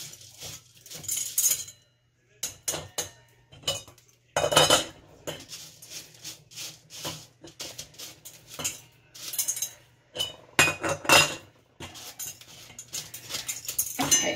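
Stainless steel canning funnel clinking against glass pint mason jars as dry lentils are poured through it: an irregular run of sharp metal-on-glass clinks and clatters, with short rushes of the lentils rattling into the jars.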